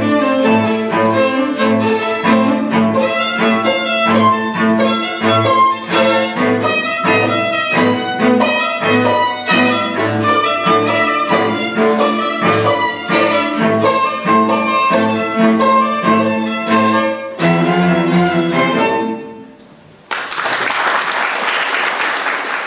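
String quartet (two violins, viola and cello) playing a lively piece with a steady pulse in the low notes, closing on a final chord about nineteen seconds in. After a brief pause the audience applauds.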